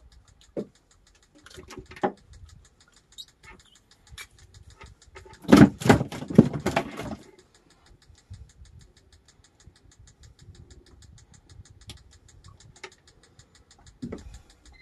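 Scattered small knocks, clicks and rustles of hands working a fishing hand line and hook in a wooden boat, with a louder clattering flurry lasting about a second and a half near the middle.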